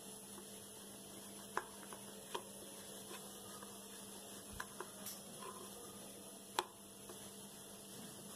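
A wooden rolling pin rolling out paratha dough on a wooden board, giving a few faint knocks and taps over a steady electrical hum.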